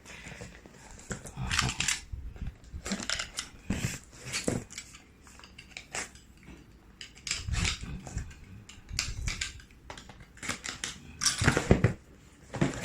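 A parcel being unpacked by hand: irregular rustling, crinkling and tearing of packaging with scattered clicks and knocks as the contents are handled.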